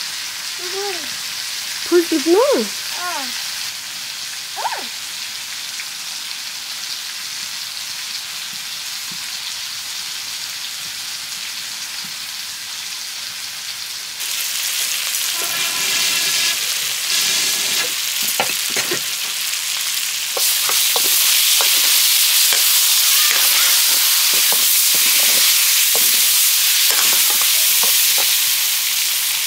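Curry frying and sizzling in a pan, with a spoon stirring and scraping against it. The sizzle gets louder about halfway through and again about two-thirds in.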